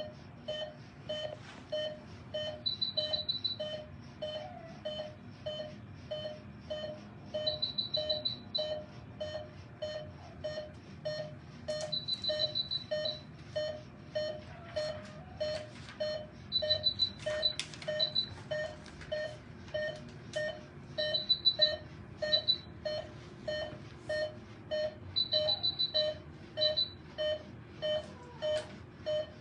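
Veterinary anaesthesia monitor beeping steadily, about two short mid-pitched beeps a second, with a higher, rapidly pulsing alarm tone sounding briefly every four or five seconds.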